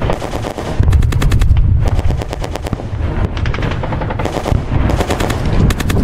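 Battle sound effect: rapid bursts of machine-gun fire over a low rumble, getting louder about a second in.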